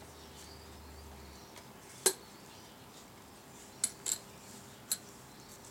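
Sharp metallic clicks of a compact aluminium camera tripod as its legs and clamps are handled to change its height, four in all: one loud click about two seconds in, then three more close together near the end.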